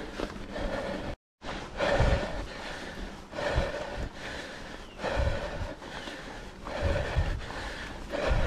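Mountain biker breathing hard in a steady rhythm, a loud breath about every second and a half, over the rumble of tyres on a dirt trail. The sound cuts out completely for a moment about a second in.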